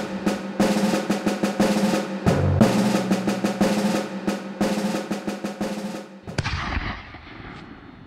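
Background music of snare drum rolls and beats over a held low note. About six seconds in it stops on a final stroke that rings away and fades out.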